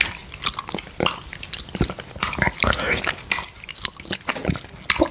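Close-miked wet licking and slurping of orange juice off a glass plate: irregular lip smacks, tongue clicks and sucks with no steady rhythm.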